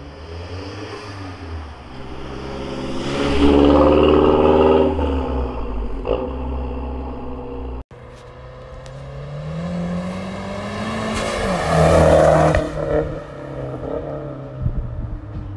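Mazdaspeed 3's turbocharged 2.3-litre four-cylinder, with a catted downpipe and non-resonated Magnaflow cat-back exhaust, driving past twice under acceleration. The first pass is loudest a few seconds in. After an abrupt cut, the second pass rises steadily in pitch, dips, and is loudest about two-thirds of the way through before fading.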